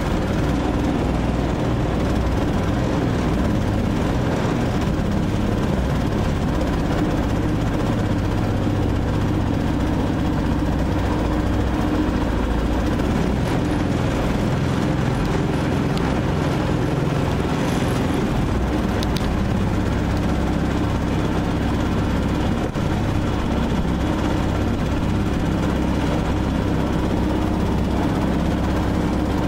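Bawad long-tail mud motor running steadily under load as it drives a flat-bottomed boat through dense cattails, its engine note holding even throughout.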